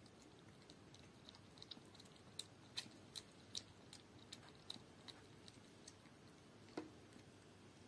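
Puppy lapping milk from a small dish: faint, irregular clicks, a few each second, with one louder click near the end.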